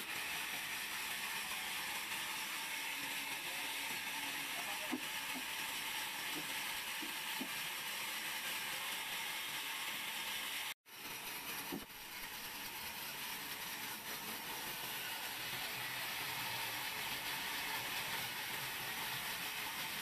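Large sawmill band saw running, its blade cutting lengthwise through a wooden slab with a steady hiss. The sound drops out for a moment about halfway through, then carries on the same.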